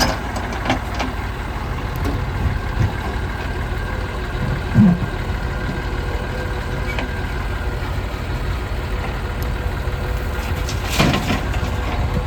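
Heavy diesel engine running steadily at low revs, with a single loud thump about five seconds in and a couple of sharper knocks near the end.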